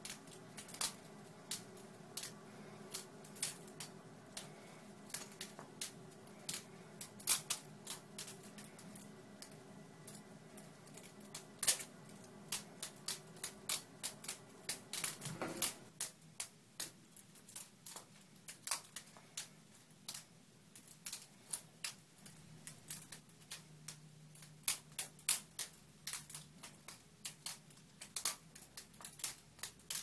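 Benchmade 51 Morpho butterfly knife being flipped: its handles and blade clack together in quick, irregular runs of sharp clicks, several a second.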